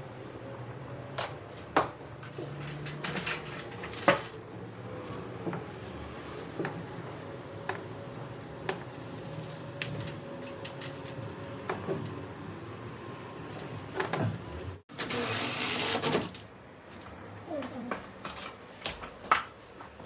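Scattered knocks and clicks of handwork, over a steady low hum that fades out about halfway through. About three quarters of the way in, a loud hissing noise lasts about a second and a half.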